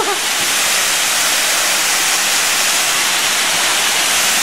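Waterfall rushing with a loud, steady hiss of falling water.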